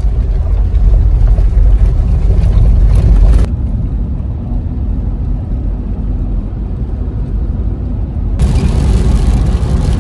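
Engine and tyre noise inside a moving car's cabin, a heavy low rumble. It changes abruptly twice: about three and a half seconds in it turns quieter and duller, and about eight seconds in it fills out again.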